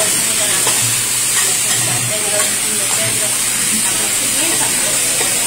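Diced beef sizzling steadily on a teppanyaki steel griddle, with a spatula scraping and turning it on the hot plate.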